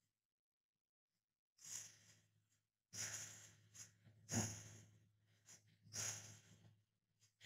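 Short puffs of breath blown through a drinking straw, about four of them a second or so apart, pushing wet alcohol ink across vellum.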